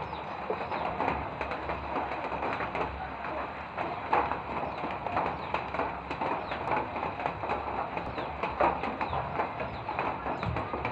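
Birds calling against a steady background patter of light rain.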